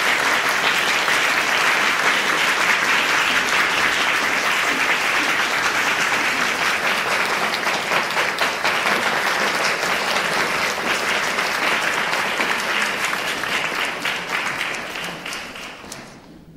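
Applause from the audience and the chorus members on stage: steady, dense clapping that fades out over the last couple of seconds.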